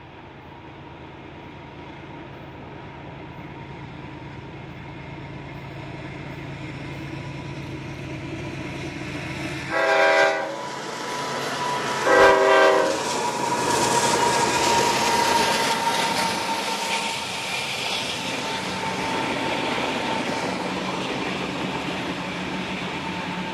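Canadian Pacific diesel locomotives at the head of a loaded coal train approaching, growing steadily louder, then sounding two short horn blasts about ten and twelve seconds in. The locomotives then pass and the loaded coal hoppers roll by with wheel clatter and a steady high whine.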